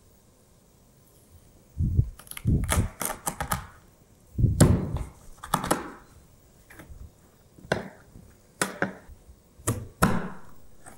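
Chef's knife chopping small scorpionfish into pieces, through flesh and bone, on a plastic cutting board. Starting about two seconds in, there are around ten irregular knocks of the blade striking the board, some in quick pairs.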